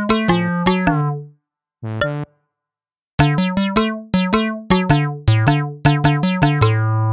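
Background music: a run of short, quickly fading notes in a bouncy rhythm. It breaks off for about two seconds near the start, with one lone note in the gap, then picks up again.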